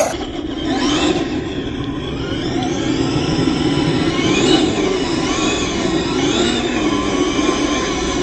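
Traxxas X-Maxx RC truck's brushless electric motor whining, its pitch rising and falling several times with the throttle, over the steady hiss of its tires spinning and sliding on dust and gravel during burnouts.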